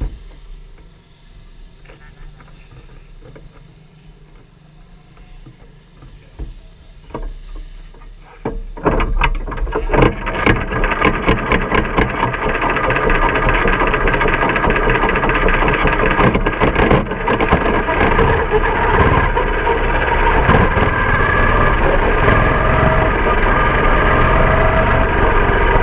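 Small open-wheel race car's engine, heard from onboard: low and quiet with some rattling for the first nine seconds or so, then it comes in loud all at once and runs steadily as the car pulls out onto the dirt track.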